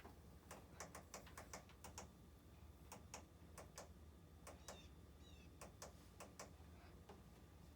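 Washing machine control panel clicking as its buttons or selector are worked: about a dozen faint, irregular clicks while the water temperature setting won't change.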